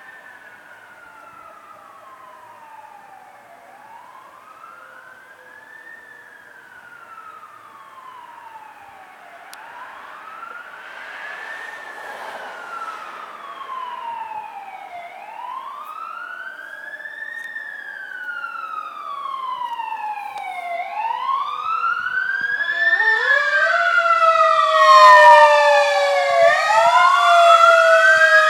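Fire truck siren wailing in a slow rise and fall, about one cycle every five to six seconds, growing steadily louder as the 1996 Spartan/3-D rescue apparatus approaches. Near the end a second, louder siren tone joins and overlaps the wail.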